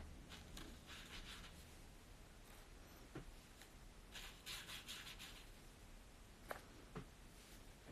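Faint scratchy rustle of a brush pen's tip stroking across paper, in two short stretches about a second in and around four to five seconds in, with a few faint ticks.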